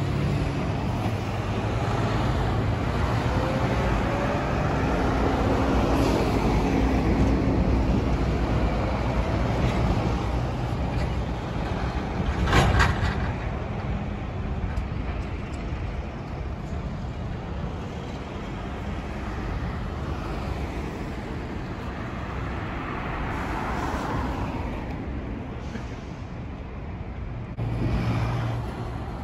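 Heavy trucks and cars passing through a road junction: engines running and a steady rush of tyre and traffic noise, with a short, sharp noise about halfway through that is the loudest moment.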